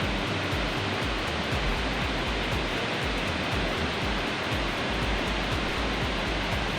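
Waterfall with a steady rushing roar of falling water, constant in level.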